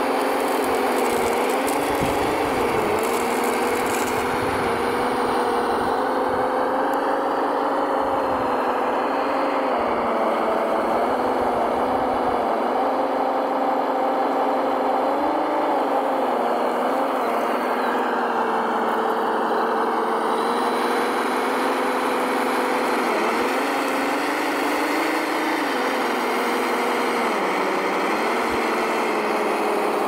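Radio-controlled model heavy truck running, a steady engine-like drone whose pitch rises and dips slightly several times as the throttle changes.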